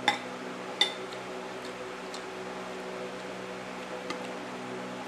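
Cutlery clinking against a plate while eating: two sharp ringing clinks in the first second, then a few light taps, over a steady hum.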